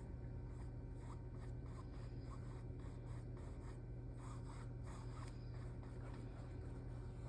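Paintbrush stroking thinned, watery paint across a canvas: faint, irregular soft brushing strokes over a steady low hum.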